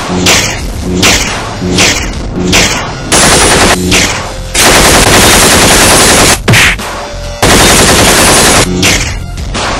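Action-film battle soundtrack: heavy hits land about every 0.7 seconds, then three long bursts of rapid machine-gun fire follow, with music underneath.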